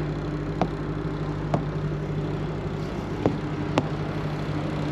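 Semi-truck diesel engine idling steadily, a low, even hum. Four short, sharp clicks break in over it, the last two close together.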